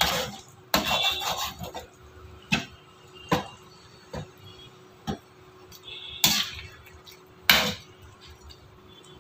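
Long perforated metal spatula scraping and knocking against a steel kadai while stirring a chicken curry thinned with water: about eight separate strokes, some with a brief metallic ring.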